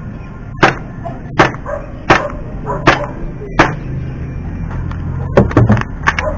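Glock 17 gas blowback airsoft pistol firing five sharp single shots at an even pace, a little under a second apart, followed near the end by a quick cluster of three clicks.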